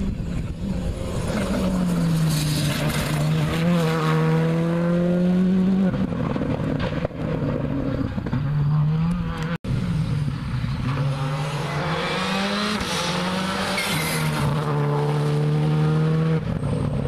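Skoda Fabia R5 rally car's 1.6-litre turbocharged four-cylinder engine revving hard at speed on a rally stage, its pitch rising and falling with gear changes and corners. Heard in two passes with an abrupt cut just under halfway through.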